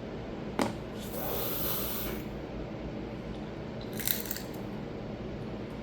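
Crab shell being cracked and picked apart by hand: a sharp crack about half a second in, a rustling hiss, then a quick cluster of clicks about four seconds in.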